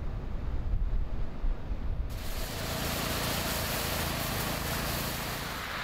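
Wind buffeting the microphone, then an abrupt switch about two seconds in to a steady hiss with a faint low engine hum, like traffic.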